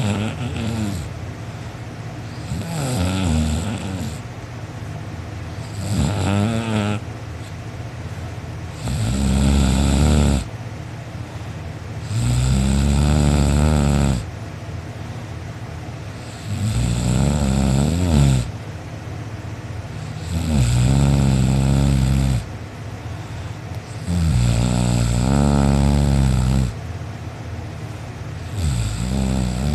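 A person snoring loudly in deep sleep: a long snore about every four seconds, each lasting one to two seconds, with the snores growing louder after the first few.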